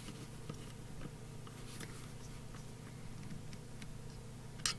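Faint metallic clicks and taps of a hand socket driver turning and seating the ground bolt of a fuel pump module, with one sharper click near the end, over a low steady hum.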